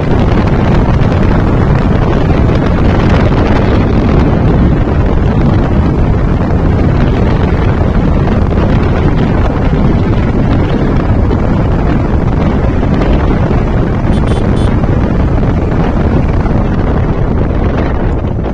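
Loud, steady wind rush over the microphone of a Honda SP125 motorcycle riding at around 55–60 km/h, with engine and tyre noise blended into it.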